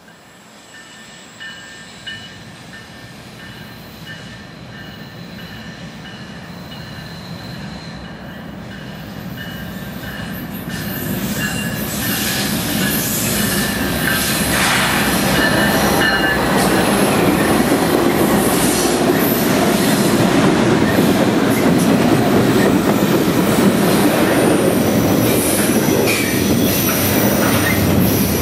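Norfolk Southern double-stack intermodal freight train approaching and passing close by, growing steadily louder over the first fifteen seconds or so and then a loud, steady rumble of wheels and cars on the rail. Thin, high steady tones sound over the approach during the first ten seconds.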